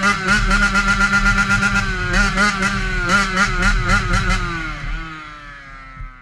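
A motorcycle engine revving in a series of quick throttle blips. Near the end its pitch falls away and it fades out.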